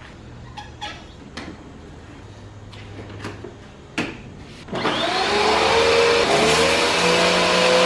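Kärcher K1700 electric pressure washer starting up about five seconds in: the motor spins up with a briefly rising whine and then runs steadily, under the hiss of the water jet. A few light clicks come before it.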